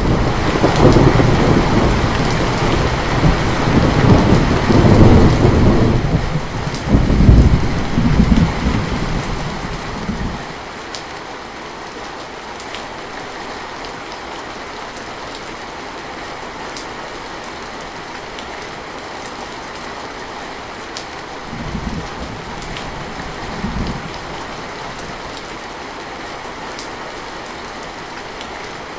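Steady heavy rain with a loud rolling rumble of thunder at the start that dies away after about ten seconds. Two short, fainter rumbles follow about two-thirds of the way through.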